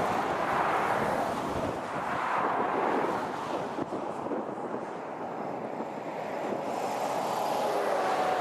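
Road traffic passing close by on a fast two-lane road: tyre and engine noise swells as a van goes past in the first few seconds, eases off, then builds again as an articulated lorry comes by near the end.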